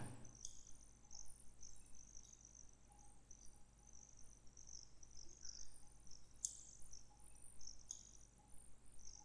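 Nearly quiet room tone with faint, irregular high chirps of insects in the background over a low steady hum, and two faint clicks in the second half.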